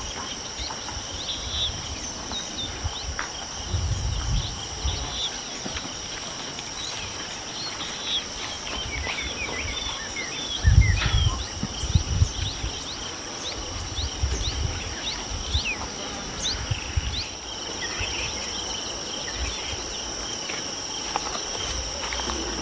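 Insects calling in a steady high chorus, with many short chirps over it. Several deep rumbling bursts stand out, the loudest about halfway through.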